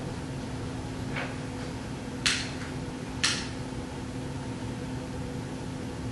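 Steady hum of the room's air handling, with a faint tap about a second in and then two sharp clicks a second apart, made by small objects being handled on a wooden altar table.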